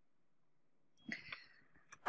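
Near silence: room tone, broken about a second in by a brief faint sound and by a soft click near the end.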